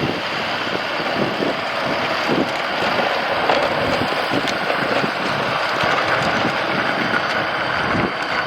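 Tractor with a snowblower running steadily, engine and blower going together with a dense rushing noise and many small ticks.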